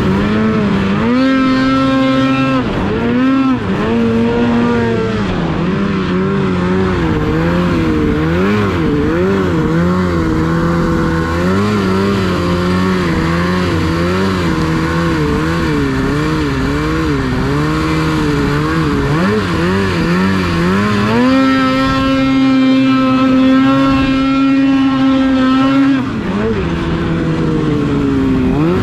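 Two-stroke snowmobile engine running in deep powder, its revs rising and falling constantly as the throttle is worked. Near the end it is held high and steady for about five seconds, then drops off.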